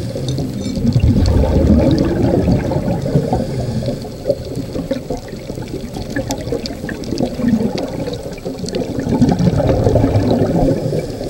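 Scuba diver's exhaled bubbles gurgling out of the regulator underwater, heard as a bubbling rumble that swells at the start and again about eight seconds in.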